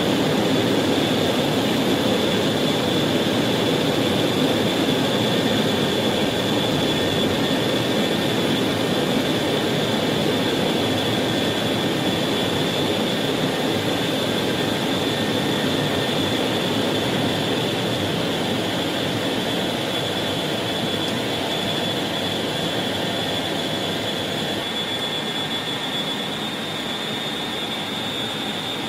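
B-52 Stratofortress jet engines heard from inside the cockpit during the takeoff roll: a loud, steady engine noise with a thin high whine, easing slowly in level.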